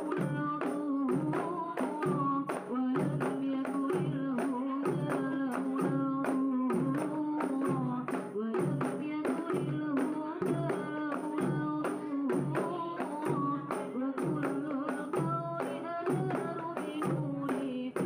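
Rebana frame drums beaten by hand in a steady rhythm, accompanying group singing.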